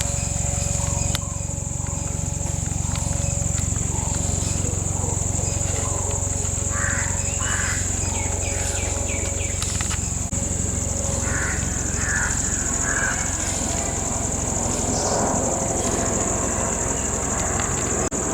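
A steady, high-pitched insect chorus over a low steady hum, with a few short bird-like chirps partway through.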